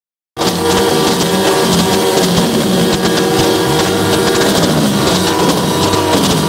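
A semi truck's horns blaring a steady, held chord of several tones as the truck rolls slowly past, with its engine running underneath. The sound cuts in after a brief gap at the very start.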